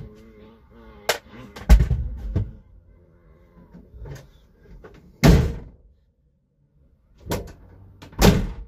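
Van's rear cargo doors and loaded gear banging: a series of sharp thumps and slams a second or more apart, the loudest about five seconds in and another near the end as the rear doors are shut.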